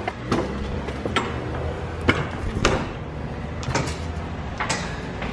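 Someone climbing an aluminium ladder: about six sharp knocks and clanks of feet and hands on the rungs, roughly a second apart, over a steady low rumble.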